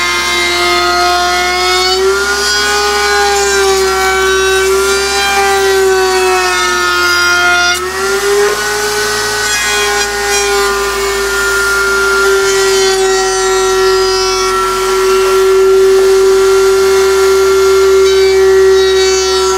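Router in a router table running at full speed, a loud high-pitched motor whine, while a hardwood cutting board is fed along the bit to put a rounded curve on its edges. The pitch sags and recovers during the first eight seconds, with a brief break about eight seconds in, then holds steady.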